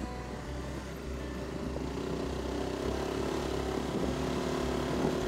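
Motorcycle engine running steadily while riding, a steady drone whose pitch and loudness climb a little from about two seconds in.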